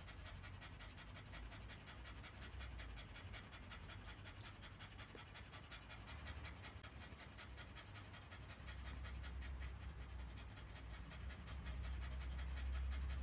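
A Shiba Inu panting fast and steadily with its tongue hanging out, the way a dog cools itself in the heat. A low rumble underneath grows louder in the second half.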